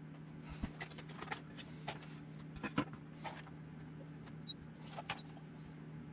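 Handling noise on a workbench as an RC buggy is lifted and a small digital scale is set down: scattered knocks and taps, the loudest a little under three seconds in, over a steady low hum.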